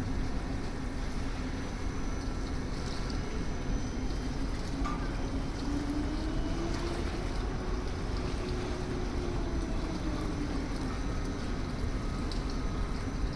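Steady low rumble of a container terminal, with a faint machine hum that rises in pitch about five seconds in and sinks back a few seconds later.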